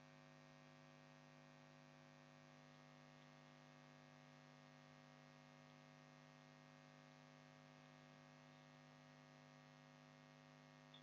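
Near silence: a faint, steady electrical hum in the recording's background.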